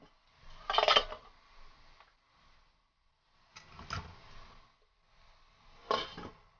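Stainless-steel wok, wire steaming rack and domed metal lid clattering and clinking as a steamer is set up over boiling water. There is a loud clatter about a second in, two sharp clinks around four seconds, and a last clank near the end as the lid goes onto the wok.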